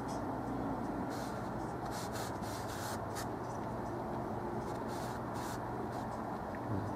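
Flat paintbrush laying oil paint onto a stretched canvas: a handful of short, scratchy brush strokes over a steady low hum.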